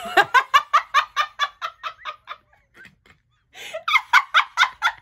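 A woman laughing hard in quick, high-pitched "ha-ha" pulses, about six a second. The first run lasts about two and a half seconds; after a pause of about a second a second run starts and goes on through the end.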